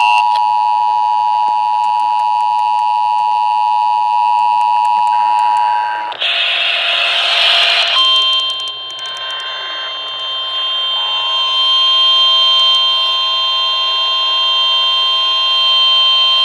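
Emergency Alert System attention signal: a loud, steady two-tone alert with tones near 850 and 960 Hz, which stops about six seconds in. A harsh burst of noise follows for about two seconds, then a second steady alert tone sounds from about eight seconds in to near the end.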